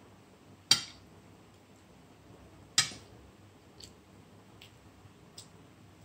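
Metal cutlery clinking sharply against a plate twice, about two seconds apart, followed by a few fainter ticks.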